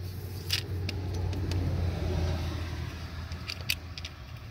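A passing road vehicle: a low rumble that swells to a peak about two seconds in and then fades. A few light clicks and rattles sound over it.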